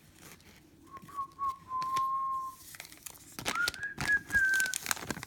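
A person whistling two long notes, the second higher and sliding up into it, over light clicks and rustles of trading cards being handled.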